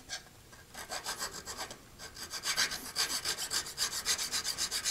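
Hand file rubbed quickly back and forth across the edge of a hard steel vise jaw, about five short strokes a second, starting about a second in with a brief pause. It is filing off a burr that was throwing off the jaw measurement.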